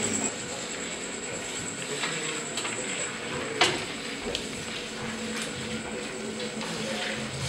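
Wet smearing and rustling of thick black liquid being spread by hand over a plastic tarpaulin, with a few light clicks and one sharp tap about three and a half seconds in.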